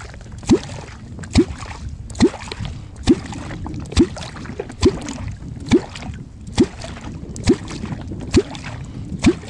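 A handheld kwok (catfish call) striking the water in a steady rhythm, a little more than one stroke a second. Each stroke is a short pop followed by a brief rising tone. This is the call used to draw catfish up from the depths to the bait.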